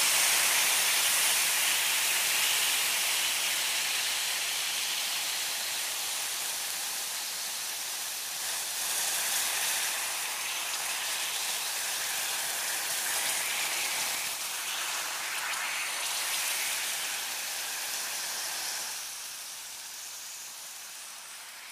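Meat sizzling on a hot grill: a steady, even hiss, loudest at the start and fading away over the last few seconds.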